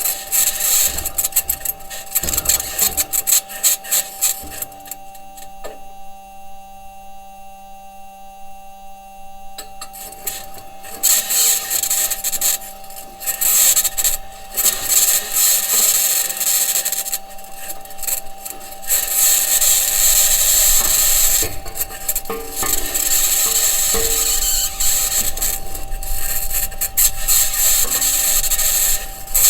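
Perseverance Mars rover driving, heard through its entry, descent and landing microphone: wheels and suspension grinding and clattering over the Martian surface, with a high-pitched scratching noise that may be electromagnetic interference from an electronics box or the mobility system working against the ground. A steady hum runs underneath, and the grinding eases off for a few seconds about five seconds in.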